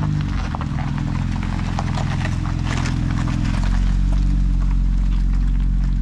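A Jeep Wrangler towing a small teardrop trailer rolling slowly past: a steady low engine rumble with crackling and crunching from the tyres on gritty pavement. The rumble grows heavier about halfway through.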